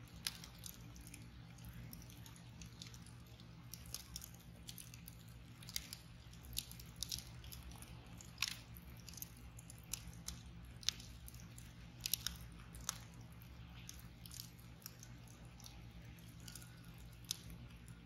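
Wood fire crackling: a burning log over glowing embers gives irregular sharp pops and snaps, a few louder ones standing out, over a low steady hum.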